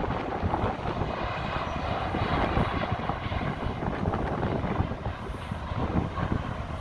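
Boeing 747's four jet engines on landing approach, a steady rumble with a faint high whine, mixed with cars passing close by on the road and wind buffeting the microphone.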